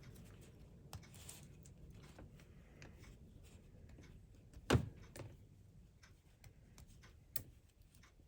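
Light clicks and taps of small plastic and metal parts as an HO slot car chassis is taken apart on a bench, with one sharper, louder click a little past halfway and a couple of smaller ones after it.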